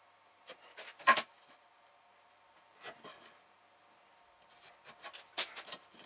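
Light, scattered taps and scratches of a pencil and steel rule on hardwood boards during marking out, the sharpest tap about a second in and a quick cluster of them near the end.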